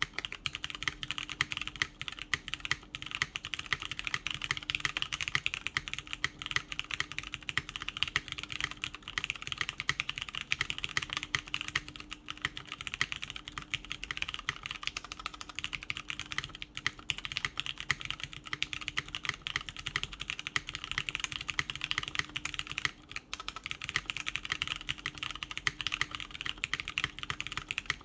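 Continuous, steady typing on a top-mount Merisi 500c/m mechanical keyboard with lubed Cherry MX Brown tactile switches on a full aluminium plate, a dense run of key clicks and bottom-outs without a break.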